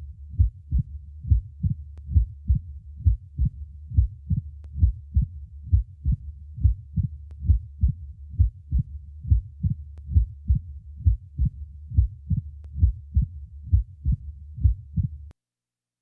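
Heart sounds heard through a stethoscope at the cardiac apex of a patient with mitral stenosis: a steady run of beats in which a short, high opening snap follows the second heart sound, the sign of the narrowed mitral valve's opening being suddenly arrested. A low rumble runs beneath the beats, and the recording stops abruptly near the end.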